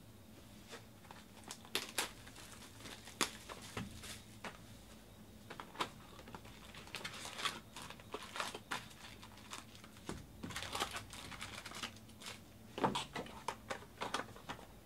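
Foil wrappers of trading-card packs crinkling and tearing as the packs are ripped open and the cards handled, in irregular bursts of crackles and small snaps.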